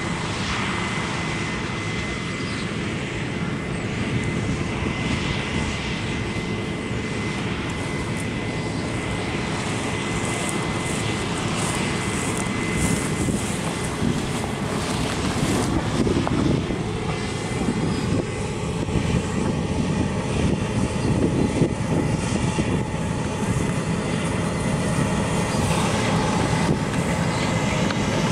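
Combine harvester running while cutting a grain crop: a steady engine and threshing drone with a thin high whine over it, growing slowly louder as the machine approaches.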